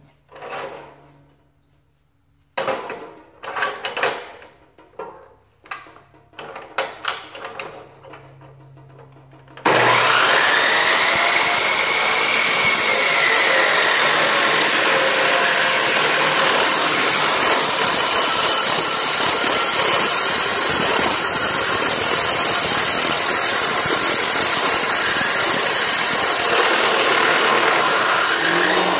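A few scattered knocks and clinks, then about ten seconds in a Harbor Freight industrial abrasive chop saw starts suddenly and grinds through 14-gauge steel tubing. The abrasive wheel runs loud and steady through the cut until near the end.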